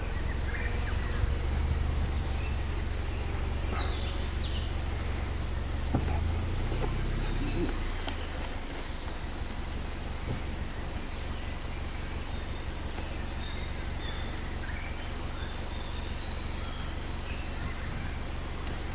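Forest ambience: a steady high-pitched insect drone with scattered bird chirps. A low rumble underneath drops away about eight seconds in.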